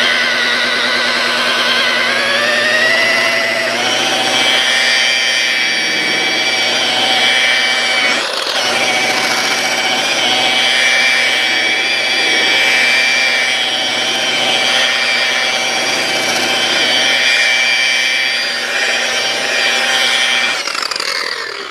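Low-RPM buffer with a buffing pad running on a headlight lens during compound polishing; its whine rises in pitch in the first few seconds, holds steady, then dies away near the end as it is stopped.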